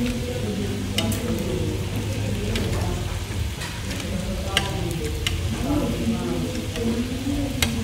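Pork and seafood sizzling on a tabletop samgyupsal grill pan, with a few sharp clicks of utensils against the pan and plates.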